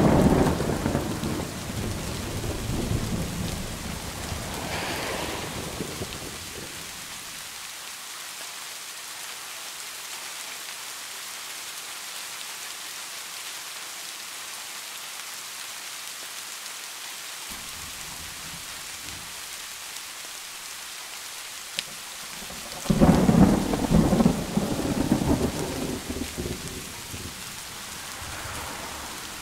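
Steady rain, an even hiss throughout. A rolling low rumble runs through the first few seconds, and a louder one comes about two-thirds of the way through.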